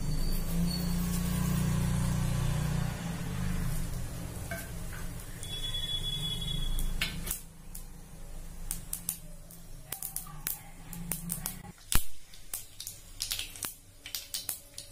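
Mustard seeds popping in hot sesame oil in an earthen pot. The sharp, separate pops begin about halfway through and come thick and fast near the end, one especially loud about twelve seconds in: the seeds are spluttering and the tempering oil is ready. Before they start there is a steady low hum.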